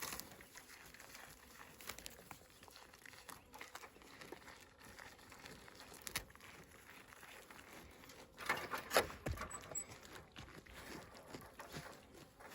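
Goats eating snacks: faint crunching and rustling, with a louder burst of crackling and knocks a little past the middle.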